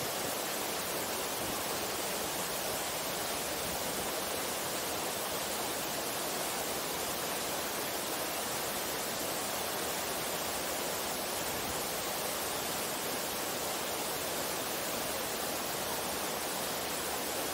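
Alpine waterfall and mountain stream rushing over rocks: a steady, even roar of falling and tumbling water.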